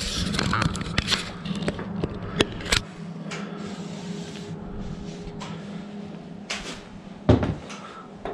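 Handling noise while working on an outboard lower unit: scattered knocks, clicks and light scrapes, the loudest knock a little before the end. A low steady hum runs under the first three seconds and then stops.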